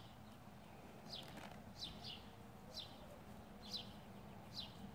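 Faint high chirps, each falling quickly in pitch, repeated about once a second over a low steady hum.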